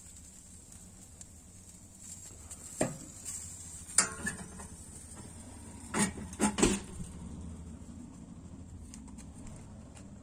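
Metal knocks and clanks from handling the lid of a Weber Summit Kamado grill: a few separate strikes, the loudest about four seconds in and a quick cluster of three about six to seven seconds in.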